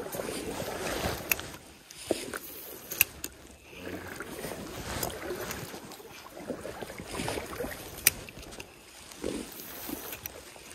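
Handling noise of a spinning rod and reel: rustling with a few sharp clicks, over water.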